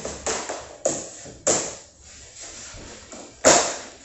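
Sharp knocks of flooring planks being tapped into place: a quick run of blows, then one more after a pause of about two seconds.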